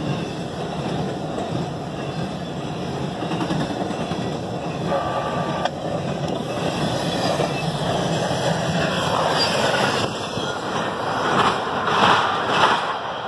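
Intermodal freight train rolling past at speed, trailers on flatcars: a steady rumble of steel wheels on rail, with louder gusts of noise near the end.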